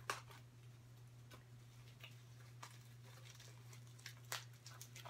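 Faint handling of a taped, layered package: scattered rustles, scrapes and small clicks of cardboard and tape as she works it open, the sharpest click just after the start and another about four seconds in, over a steady low hum.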